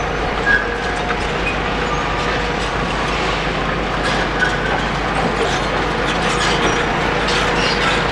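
Demolition excavator running and handling large concrete chunks in its hydraulic crusher jaws: a steady mechanical din with thin metallic squeals and scraping, and a few short clatters later on.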